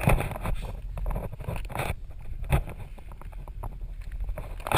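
Rustling and scraping of a person crawling over plastic ground sheeting and loose fibreglass insulation, in irregular scuffs, the loudest just after the start and near the end.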